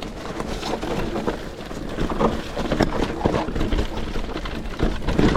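Riding noise from an e-mountain bike on a rough dirt trail: tyres running over the ground, with frequent small knocks and rattles from the bike, and wind on the microphone.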